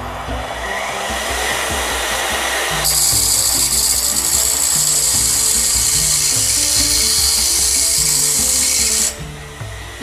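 Bench grinder running with a hand-held tool pressed against its grinding wheel to reshape and round the wheel's edge: a loud, high grinding hiss starts about three seconds in and eases off about nine seconds in.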